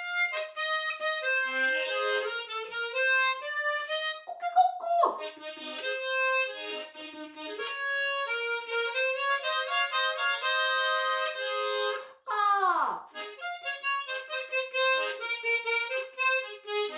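Tremolo harmonica playing a bright, bouncy melody. Twice, about four seconds in and again near twelve seconds, the playing breaks into a long sliding swoop that drops sharply in pitch: an animal call imitated on the harmonica.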